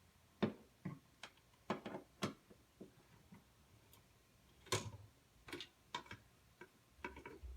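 Screws being driven by hand into a smoke detector's mounting base: a string of irregular sharp clicks and ticks, some close together, with short pauses between them.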